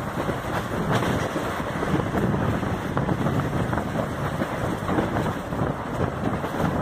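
Wind rushing over the microphone held out of a fast-moving passenger coach's doorway, over the steady rumble of the train's wheels on the track.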